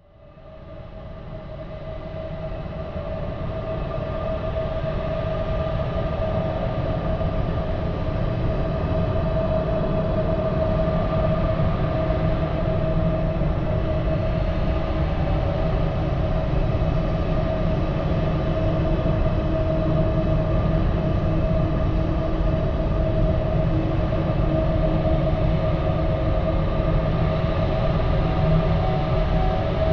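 Eerie supernatural ambient drone: a deep steady rumble with a few held tones above it, fading in from silence over the first few seconds and then holding steady.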